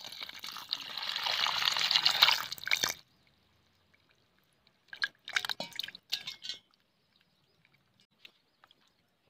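Water poured in a stream into a steel bowl of small whole fish, splashing for about three seconds and then stopping suddenly. A couple of seconds later there is a short burst of splashing as a hand swishes the fish around in the water.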